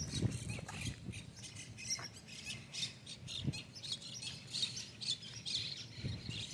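Birds calling: many short, high-pitched calls in quick succession.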